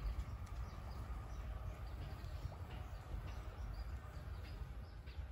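Faint, short bird chirps over a steady low rumble of outdoor background noise.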